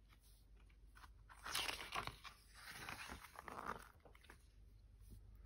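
A picture-book page being turned and pressed flat by hand, with soft, irregular paper rustles and crinkles over about two seconds.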